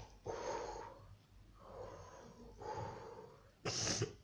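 A child breathing out hard through the mouth several times, huffing against the burn of very spicy chips, with a louder, sharper blast of breath near the end.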